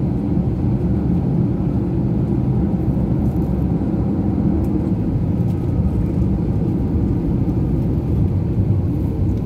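Airliner cabin noise while taxiing: a steady low rumble of the engines heard from inside the passenger cabin.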